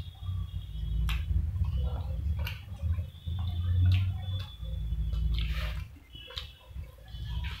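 Close-up eating sounds of fried chicken drumstick: chewing with sharp wet mouth clicks and crunches about once a second, over a steady low rumble.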